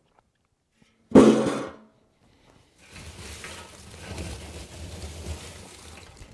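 A loud metallic clank with a short ring about a second in, as the steel lid of a 55-gallon drum charcoal kiln is handled. Then a few seconds of dry rustling and crunching as hands dig into the cooled, crisp charcoal inside the barrel.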